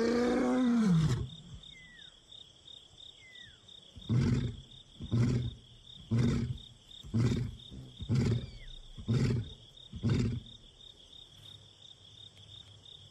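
Male lion roaring: a long moaning roar that ends about a second in, then a series of seven short grunts about one a second that stop about ten seconds in. Insects trill steadily underneath.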